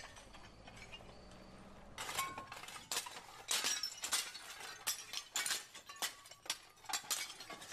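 Broken clay roof tiles clinking, clattering and shattering as they are pulled off a hail-damaged roof and pieces are dropped. From about two seconds in comes a dense, irregular run of sharp impacts.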